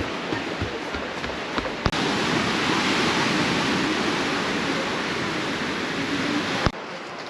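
Steady rush of water, with an abrupt jump to a louder stretch about two seconds in and an abrupt drop to quieter near the end.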